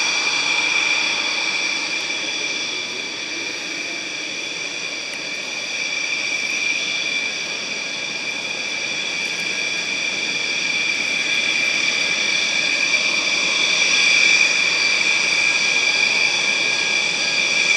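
Aircraft engine running steadily with a high, even whine over a rushing noise, holding one pitch without rising or falling.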